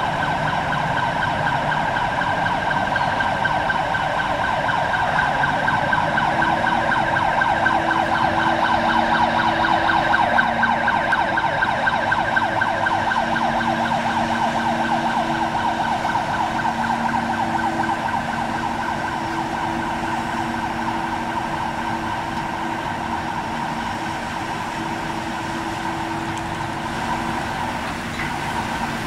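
Steady industrial noise from steelmaking converter plant machinery: a continuous high tone that wavers like a siren, with a lower machine hum coming and going from about six seconds in.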